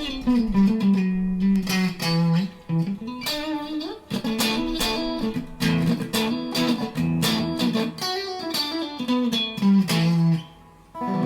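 PRS Silver Sky electric guitar played through a Mesa Triple Crown amp: a lead line of quickly picked single notes. It pauses briefly near the end, then a chord is struck and rings on.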